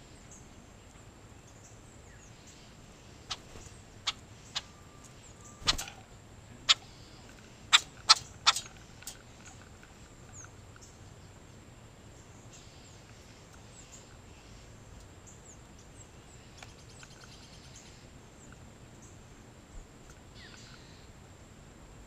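A run of about ten sharp knocks and taps on a metal-mesh tube feeder, the loudest near the middle of the run, as a red-bellied woodpecker lands and works at the feeder. Faint bird chirps follow.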